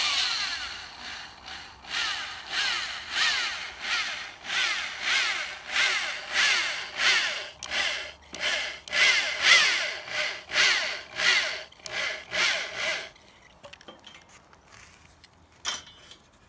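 Electric drill driving a 4-inch Torx-head wood screw into carved cedar, run in short trigger pulses about twice a second, the pitch dropping within each pulse as the screw bites. It stops about 13 seconds in, and there is one light click near the end.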